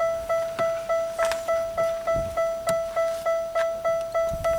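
A 1998 Pontiac Bonneville's electronic warning chime dinging steadily, about three times a second, as it does with a door open and the key in or lights on. A few light clicks from work on the dash trim.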